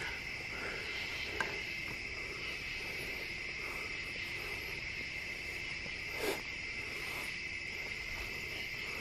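Steady chorus of crickets trilling, with a faint tick about a second and a half in and a brief rustle about six seconds in.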